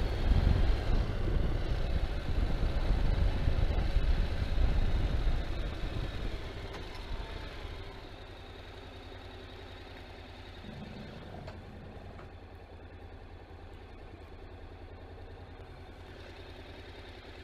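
Motorcycle engine under way, loud at first, then easing off over a couple of seconds about six seconds in and settling to a steady idle.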